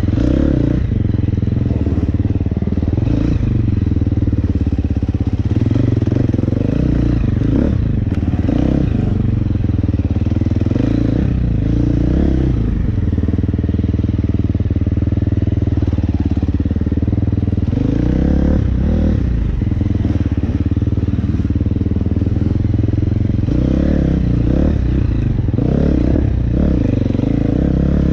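KTM 350 SX-F single-cylinder four-stroke dirt bike engine running under load, revving up and down again and again as the throttle is opened and closed on a slippery muddy trail.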